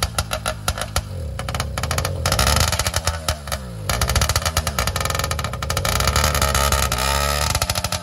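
Two-stroke motorized-bicycle kit engine running loud, popping rapidly at first, then revved up about a second in, eased off briefly near the four-second mark and revved up again.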